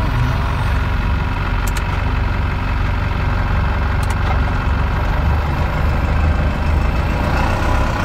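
Diesel engine of a 4x4 expedition truck running steadily under load in low range, heard inside the cab, as the truck works its way out of soft beach sand. The engine grows a little louder about five seconds in.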